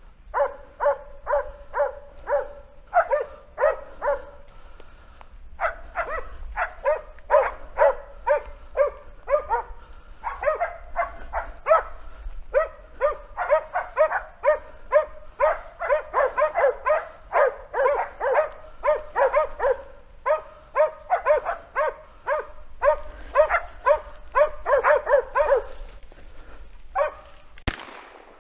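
Hunting dogs barking in a steady run, about two barks a second, as they bay a wild boar. Near the end, a single loud shotgun shot.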